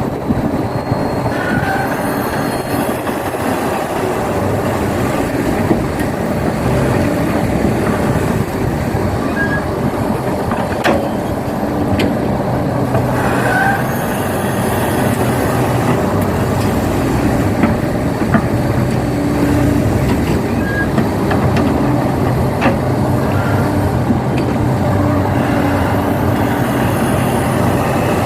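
Excavator diesel engine running steadily under working load, with scattered metallic clanks and knocks from the machine as it digs and loads soil.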